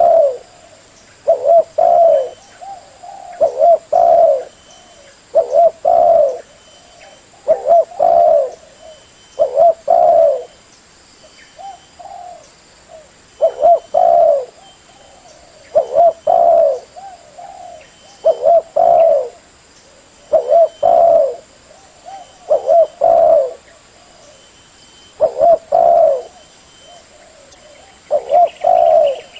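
Spotted dove cooing, a short phrase of two or three coos repeated about every two seconds: the recorded lure call used to attract wild doves.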